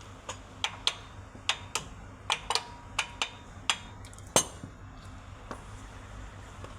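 Hammer tapping on metal during a bearing replacement: about a dozen sharp, ringing taps at an uneven pace, the last one the loudest, then they stop.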